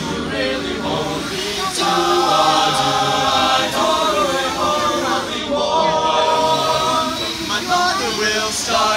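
Male a cappella group singing in close harmony with no instruments, holding long chords.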